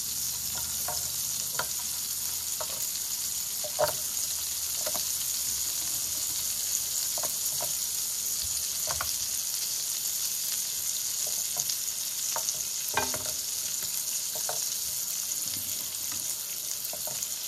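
Butter sizzling steadily in a hot electric skillet as slices of delicata squash are laid in one by one, each set down with a short tap over the hiss. One tap, about four seconds in, is louder than the rest.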